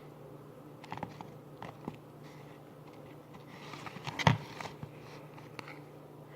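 A mixing utensil clicking and scraping against a plastic bowl while stirring sticky glue-and-borax slime, with a louder cluster of knocks about four seconds in.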